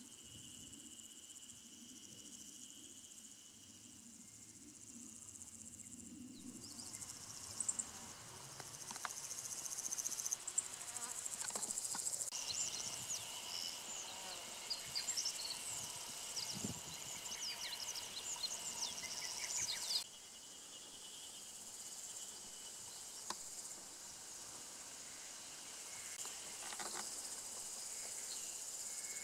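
Insects shrilling in grassland, a steady high-pitched trill with many short high chirps mixed in between about 7 and 20 seconds in. The background shifts abruptly about 6, 12 and 20 seconds in.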